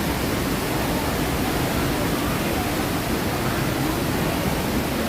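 Steady rushing of falling water from a theme-park waterfall.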